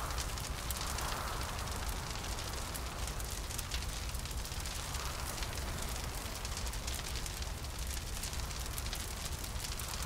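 Fire crackling: a dense run of small pops over a steady low rumble, with a hollow wind swelling softly now and then.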